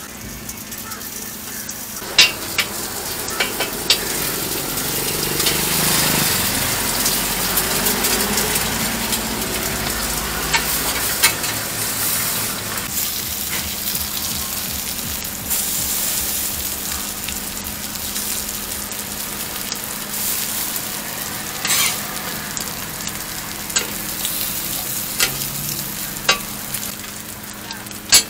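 Pork jerky slices and halved bread loaves sizzling on a hot flat griddle, the sizzle swelling a couple of seconds in and holding steady. Sharp metal clicks every few seconds from a steel scraper tapping and scraping against the plate.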